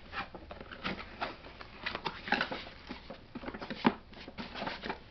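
Cardboard box being opened and handled: irregular rustles, scrapes and taps from the flaps and packaging, with one sharper knock about four seconds in.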